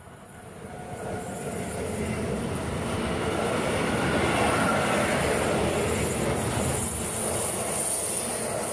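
Electric locomotive and intermodal freight wagons rolling past, growing louder over the first few seconds as the train arrives, then a steady rumble of the wagons passing close by.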